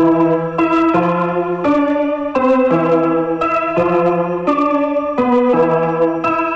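Music played through a boAt Stone 1400 30-watt Bluetooth speaker as a sound test: organ-like keyboard music with sustained chords that change every second or so.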